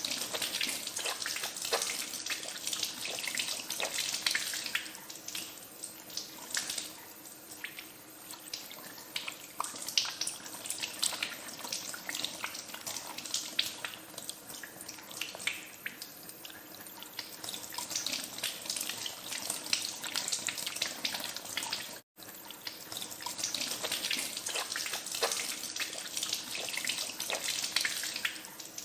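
Water running from a tap into a sink, with hands washing under the stream, splashing unevenly. The sound breaks off for an instant about two thirds of the way through.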